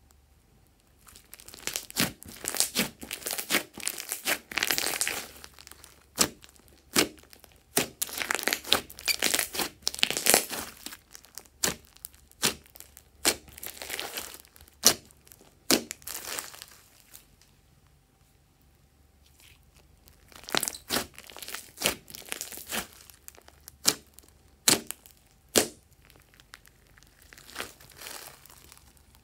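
Thick glossy slime being squeezed and stretched by hand, giving sticky crackles and sharp little pops in bursts, with short pauses between.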